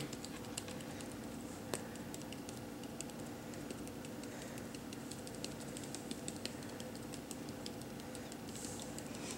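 Faint, irregular light tapping on a handheld spice bottle, shaking paprika out a little at a time, with a steady low hum underneath.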